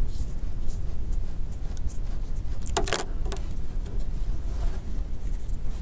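Steady low background rumble, with faint rubbing of a cloth towel over a phone's glass screen assembly and a brief, sharper rub or squeak about three seconds in.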